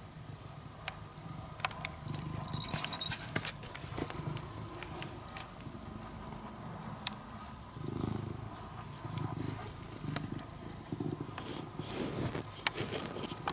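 A domestic cat purring close to the microphone, in low pulses that swell and fade, with scattered clicks and brushing noises as its face and fur rub against the camera.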